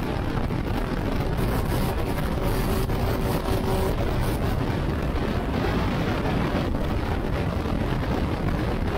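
Turbocharged Rotax 912 engine and propeller of a light plane at takeoff power, heard from inside the cockpit as a loud, steady drone through the takeoff roll and lift-off.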